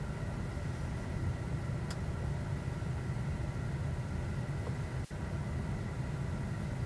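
Steady low rumble of tyre and road noise inside the cabin of a Tesla Model 3 being driven, with no engine sound from the electric car.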